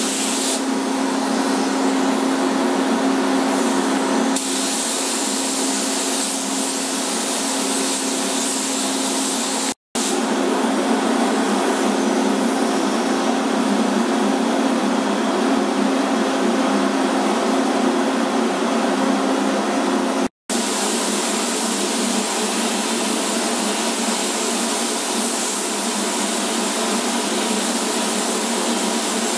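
Steady rush of air with a constant low hum in a spray paint booth, the booth's airflow together with the hiss of a compressed-air spray gun laying paint on masked car body edges. The sound cuts out for an instant twice.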